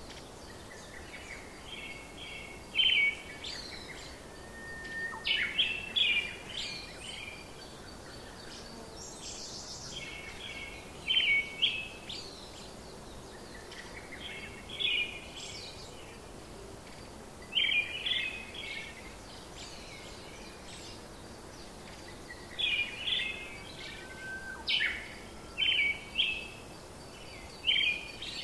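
A bird singing short bursts of chirps and whistled notes, a few seconds apart, over a steady background hiss.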